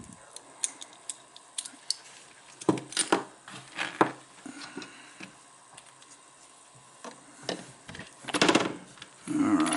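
Small metal lighter cases and parts being handled and set down on a rubber bench mat: scattered light clicks and taps, with a few louder knocks about three and four seconds in and a brief louder burst of handling noise near the end.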